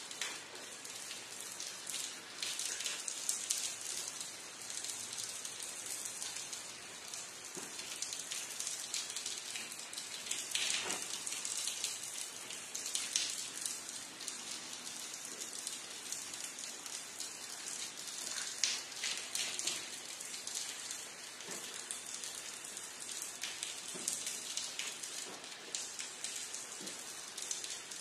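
Steady rain falling: a constant hiss with irregular louder drop hits scattered throughout.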